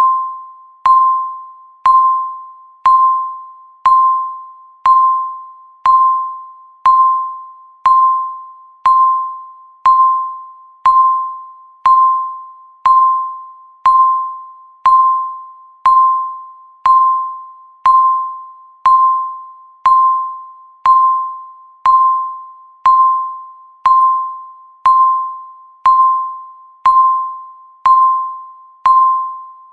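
Countdown timer beeping once a second: a clear, bell-like beep that starts sharply and fades away before the next one.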